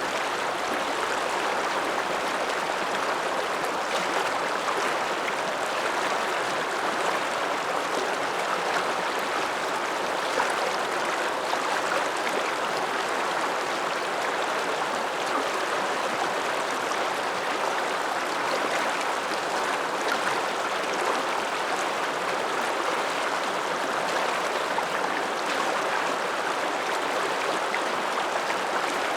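Alpine river, the Ramsauer Ache, rushing steadily, a continuous even wash of flowing water.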